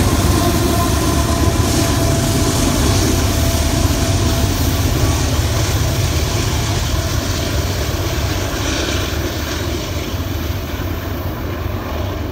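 GE diesel-electric helper locomotives (AC4400CW and ES40DC) pushing a heavy loaded coal train up a grade, their engines working hard with a deep drone that slowly fades as they move away. A faint steady squeal from the wheels runs through the first half.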